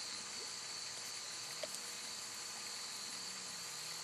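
Steady chorus of crickets trilling in a continuous high band, with a faint low hum that slowly rises and falls in pitch underneath.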